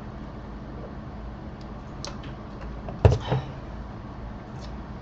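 Quiet handling noise: a few faint clicks and one sharp knock about three seconds in, followed by a brief low hum.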